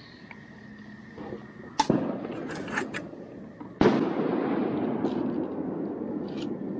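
Backpacking gas stove being lit: a sharp click and a few crackles, then a second sharp click about four seconds in as the burner catches and runs with a steady rushing hiss.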